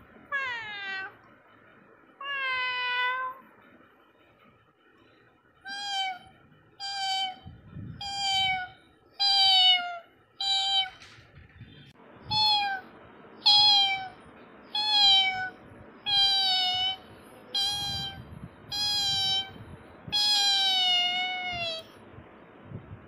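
Cat meowing over and over: two drawn-out, falling meows, then a quick run of short meows about one a second.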